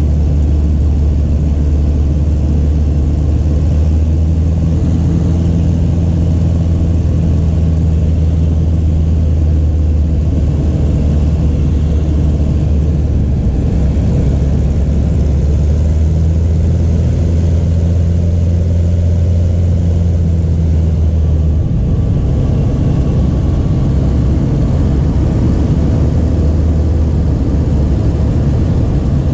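Pitts S-1S biplane's four-cylinder Lycoming engine and propeller droning steadily in cruise flight, heard from inside the open-framed single-seat cockpit. The low engine note shifts slightly about 22 seconds in.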